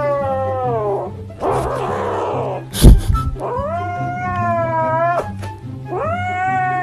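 A kitten meowing in three long drawn-out cries, with a rough breathy noise between the first two and a sharp thump about three seconds in. Background music with a steady beat plays underneath.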